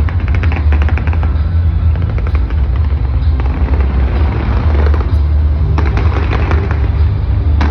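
Fireworks going off: clusters of rapid crackling bangs near the start, in the middle and again near the end, over a steady low rumble.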